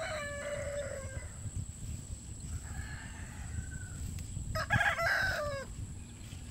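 Rooster crowing twice: one crow trails off about a second in, and a second, louder crow comes about four and a half seconds in and falls in pitch at its end.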